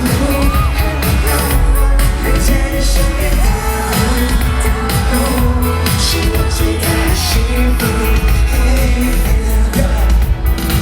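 Loud live pop music over a concert sound system: a heavy bass line and a steady beat, with a voice singing at times.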